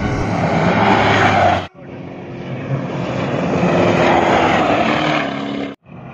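Off-road rally pickup trucks running flat out on a sand track, engine noise rising and falling as they pass. A steady engine note slides a little lower over the later part. The sound breaks off sharply twice, where clips are cut together.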